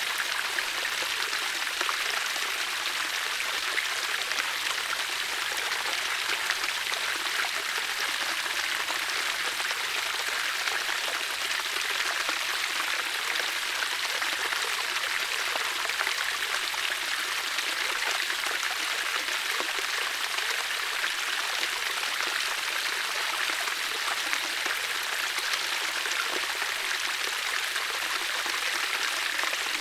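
Running water splashing and rushing steadily, an even hiss with fine spattering detail.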